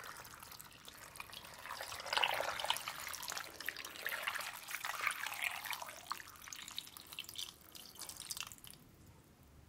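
Filtered water poured from a jug into a slow cooker pot packed with beef bones and vegetables, splashing and trickling as the pot fills; the pouring stops about nine seconds in.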